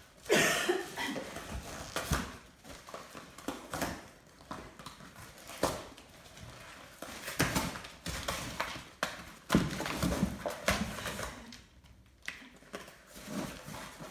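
Dog tearing and chewing at a cardboard box: irregular rips, crunches and scuffs of cardboard, in uneven bursts with short pauses.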